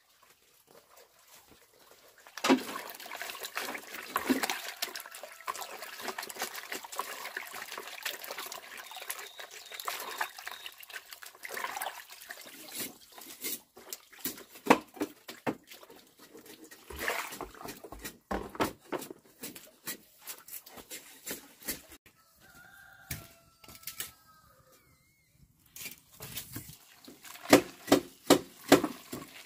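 Chickens clucking, with short calls about two-thirds of the way through, amid many sharp knocks and clatter from handwork; the knocks come loudest in a quick run near the end.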